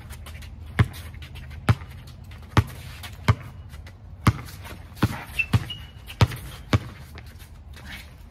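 Basketball being dribbled on an outdoor hard court: about ten single bounces, roughly one a second at first and quicker around the middle.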